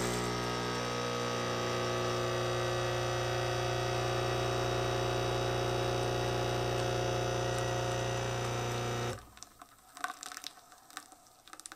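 Nespresso Essenza Mini's 19-bar vibratory pump humming steadily as it forces water through a capsule to brew an espresso shot. It cuts off suddenly about nine seconds in, and a few faint ticks follow.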